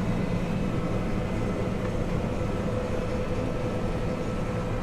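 A vehicle engine running steadily, heard from inside the cab, with a faint constant whine over the drone.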